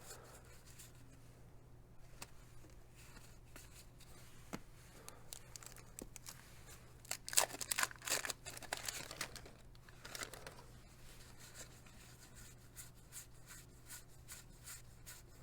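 Wax-paper card pack being crinkled and torn open, with a louder burst of rustling about halfway through, among soft clicks of baseball cards being handled and flipped.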